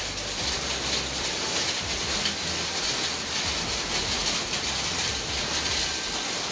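Hailstorm with heavy rain drumming on a sheet roof: a dense, steady clatter of countless small impacts.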